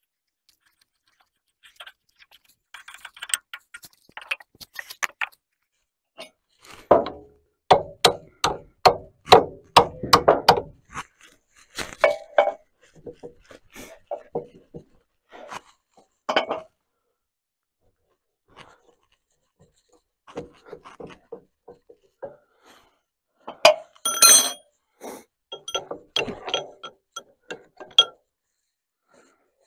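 Metal tools clinking and knocking on a bulldozer's hydraulic cylinder as its rod end is worked free. A run of sharp knocks, about two or three a second, comes about seven seconds in and lasts some four seconds, with another cluster of clinks later.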